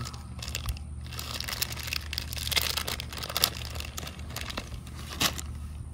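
Plastic bag of soft-plastic fishing worms crinkling as it is worked open by hand, in irregular crackles with a sharp snap near the end.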